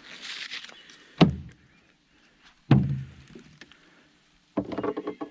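Two hollow knocks about a second and a half apart, then a quick run of clicks and rattles near the end: gear being handled and set down while fishing bait is rigged.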